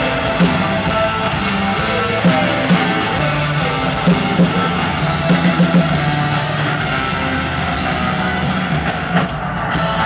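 A rock band playing live, with electric guitars and a drum kit, heard from the audience in a large arena.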